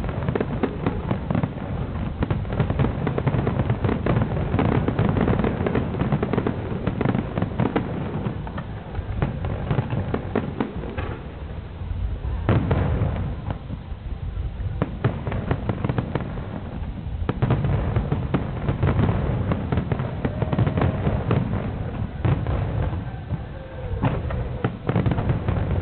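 Fireworks display: a dense barrage of aerial shells bursting and crackling one on top of another, with a thinner stretch about halfway through before the bursts pile up again.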